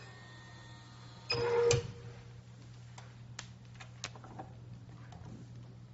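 Output cover of a phone-case printing vending machine opening with a short, loud clatter about a second and a half in, then a few light plastic clicks as the printed phone case is picked up off the tray. A steady low hum runs underneath.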